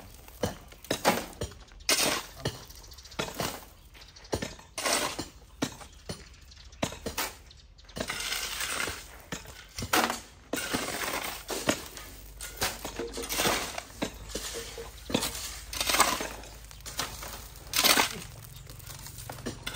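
Irregular sharp knocks and clinks of hard objects, one or two a second, with a few seconds of rougher scraping noise in the middle.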